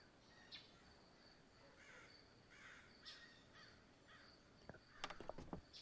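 Faint outdoor ambience: a steady pulsing high insect trill with scattered bird calls, and a quick cluster of clicks or knocks near the end.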